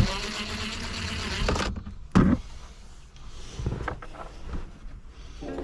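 A small cordless screwdriver whirring for about a second and a half as it backs out a console trim screw. Then a single loud knock and a few light clicks of tool and plastic trim being handled.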